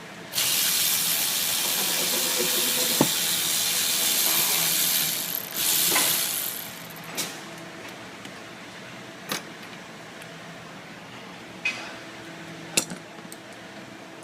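A loud steady air hiss for about five seconds, then a second shorter hiss, followed by a few sharp single clicks and taps from tools.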